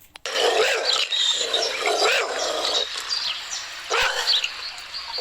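Dog barking repeatedly over a steady hiss.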